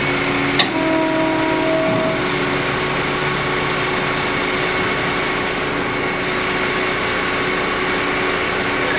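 Hydraulics of a Trail King beavertail trailer running steadily as the hinged ramp flaps fold up, a steady engine-like hum. A sharp click comes about half a second in, followed by a brief higher whine lasting about a second and a half.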